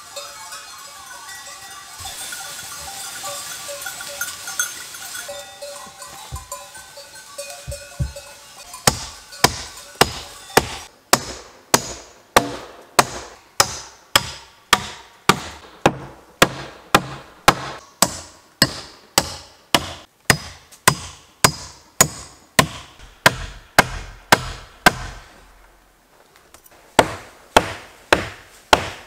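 Hammer driving nails into wooden framing: a long run of steady, even blows, nearly two a second, then a short pause and a few more blows near the end.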